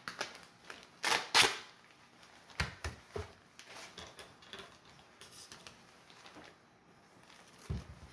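Duct tape being torn off the roll: two loud crackling rips about a second in, then smaller crackles and taps as it is worked around the glove cuff.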